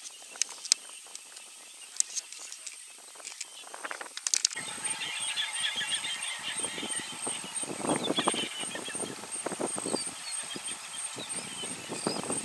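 African elephants feeding in brush: irregular rustling and tearing of grass and twigs, with sparse sharp snaps at first. About four seconds in the background changes to a steady high whine with chirping behind the feeding noises.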